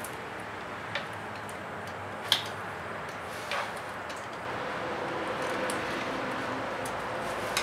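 A few short clicks and taps, the sharpest about two seconds in, as a hand works at the hose clamp behind a car's plastic air-intake resonator. They sound over a steady background hum that gets a little louder about halfway through.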